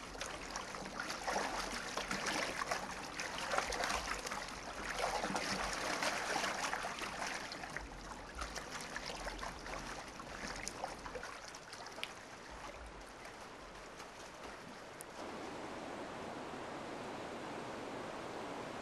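Water splashing and churning at the surface of a muddy river as an exhausted young wildebeest struggles and sinks, the splashing loudest in the first several seconds and then dying away. Near the end, a steady rush of river rapids takes over.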